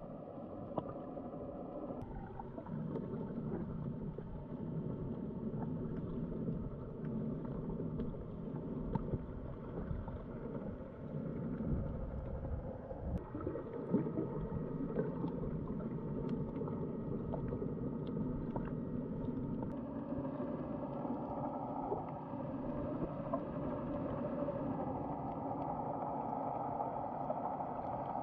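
Muffled underwater ambience picked up by a snorkeling camera: a steady low rush of water with a faint hum and a few small clicks.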